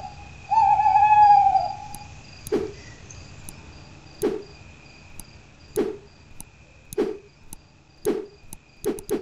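Night ambience of crickets chirping steadily, with a loud warbling call in the first second and a half. From about two and a half seconds in, a series of dull thuds about every second or so, coming quicker near the end.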